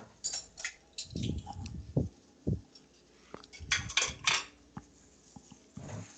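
Clatter of dishes and cutlery: irregular clinks and knocks, with a quick run of them about four seconds in.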